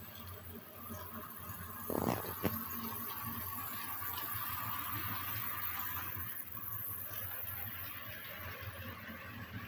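Model train running on its track: a steady rolling rumble with a faint motor whine, and two sharp clicks about two seconds in.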